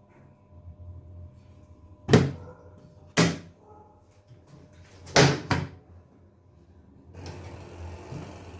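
Four sharp knocks and bangs on a washing machine's body as it is handled, the last two close together. Near the end a steady rushing noise starts up.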